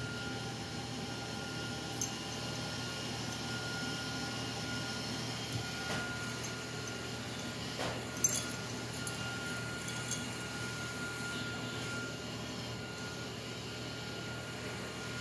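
A dog nosing at a glass mason jar: two sharp light taps, one about two seconds in and a louder one about eight seconds in, with a few fainter ticks between, over a steady background hum.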